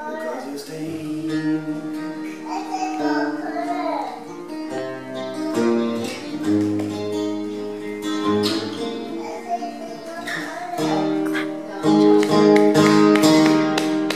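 Acoustic guitar strummed in chords, with a voice singing along. The playing gets louder about twelve seconds in.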